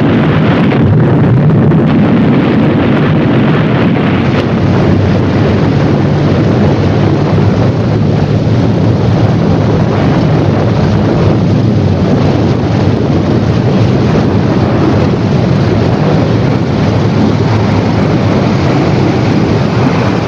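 Explosion of an underwater demolition charge blasting a reef, sending up a huge column of water: a loud, low, steady rumble that goes on without a break.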